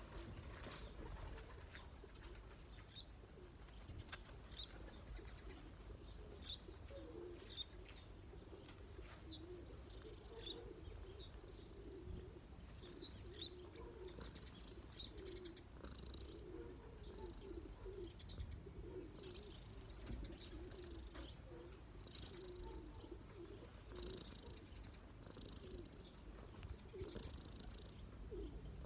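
Cat purring steadily and softly close to the microphone, with birds chirping now and then in the background.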